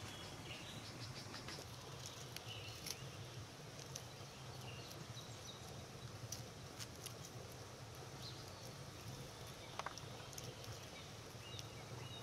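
Pomegranates being broken apart and picked by hand, with scattered light clicks and crackles of rind and seeds pattering onto a heap of seeds in a bowl. Faint bird chirps come in now and then.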